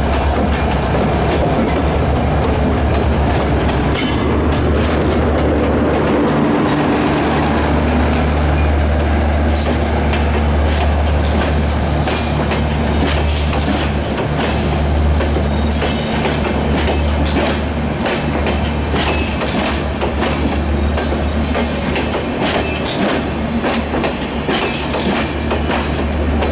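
Passenger train coaches rolling past on departure, their wheels clicking over rail joints with occasional high wheel squeal, over a steady low drone.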